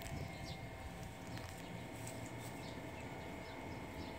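Small birds chirping in the background, a short falling call every half second or so, over outdoor ambience with soft footsteps.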